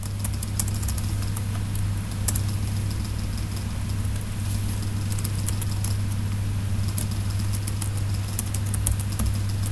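Computer keyboard typing: scattered light key clicks over a steady low hum.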